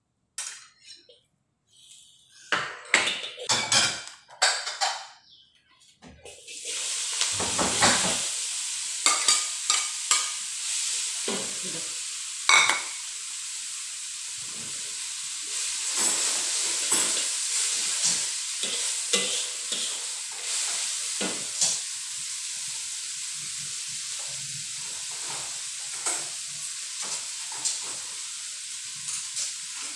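Shredded cabbage stir-frying in a wok over a gas flame: a steady sizzle with the spatula scraping and clacking against the pan. The first few seconds hold only scattered scrapes and clatters before the sizzle starts.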